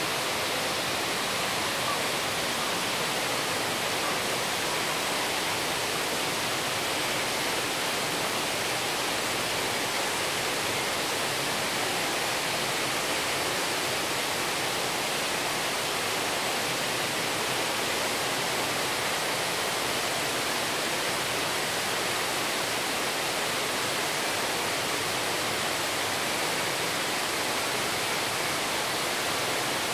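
Steady, even rushing noise, unchanging throughout, with no distinct events.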